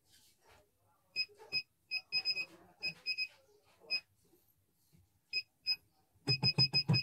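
Key beeps from a CNY computerized embroidery machine's control panel as its buttons and touch screen are pressed: short high beeps, some single and some in quick groups. About six seconds in they become a louder, fast run of beeps, about seven a second, each with a low thud under it.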